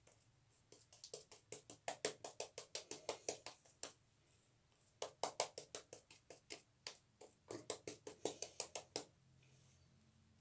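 Shaving brush working soap lather onto a bearded face and neck: quick brush strokes, about five a second, in three runs with short pauses between.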